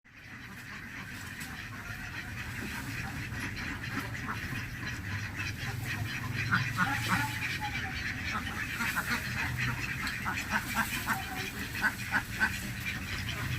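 A flock of ducks quacking: many short, overlapping calls that grow busier and louder partway through, over a steady low hum.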